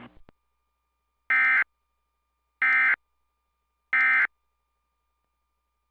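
Emergency Alert System end-of-message tones from a TFT EAS 911 encoder/decoder: three short bursts of digital data squawk, evenly spaced, marking the end of the relayed alert. A faint steady tone runs underneath.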